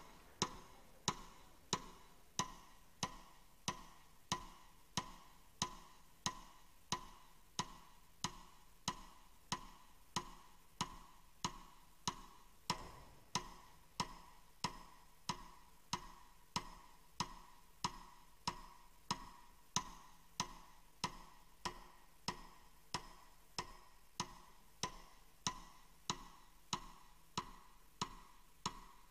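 Metronome ticking at a steady tempo, about one and a half ticks a second, used as the rhythmic accompaniment to the dance.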